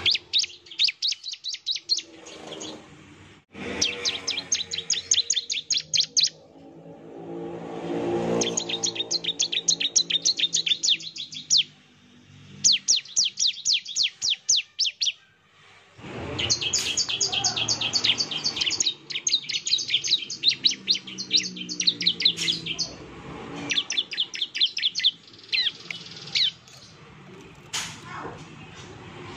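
Bar-winged prinia (ciblek) calling in fast runs of sharp, high, evenly repeated notes, each burst lasting one to three seconds with short pauses between, the rapid 'nembak' call used to provoke other ciblek to answer. A low droning hum sounds beneath it at times.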